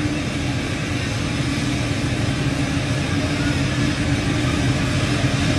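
Steady drone of a moving vehicle heard from inside its cabin: a low rumble with a steady hum running through it.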